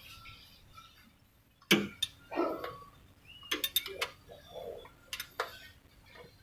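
Scattered sharp clicks and knocks, the loudest about a second and a half in, then a quick run of several clicks near the middle and two more later.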